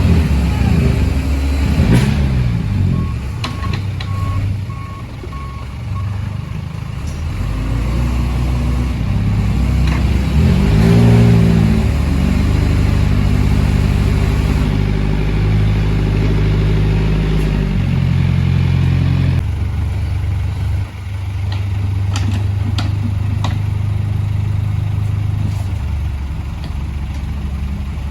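Heavy vehicle engines working under load as a backhoe tows a stuck lorry free, revving up and down and then holding steadier. A reversing beeper sounds about five times, starting about three seconds in.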